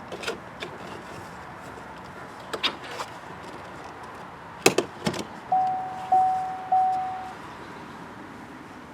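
Scattered light clicks and clunks of work on the door of a 2008 Chevy Equinox. About halfway through come two sharp clunks, then three evenly spaced electronic chime tones from the car, each fading away.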